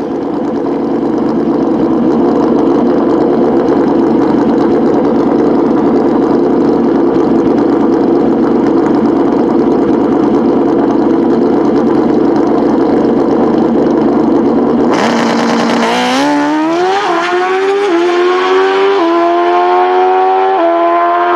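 Suzuki Pro Stock Motorcycle's four-cylinder engine held at steady high revs on the start line, then launching about fifteen seconds in: the pitch climbs and drops back several times as the bike shifts up through its gears down the drag strip.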